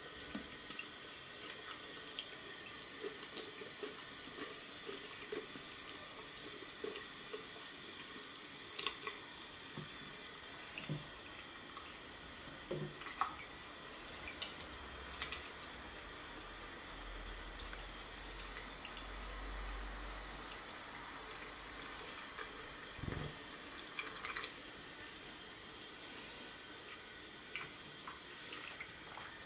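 Thin stream of water running from a mixer tap into a ceramic wash basin: a steady hiss, with a few faint clicks and knocks scattered through it.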